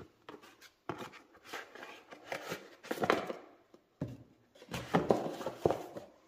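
Cardboard box and moulded paper-pulp tray being handled: a few irregular bursts of scraping and rustling as the tray with the extender is slid out of the box and set down on a table.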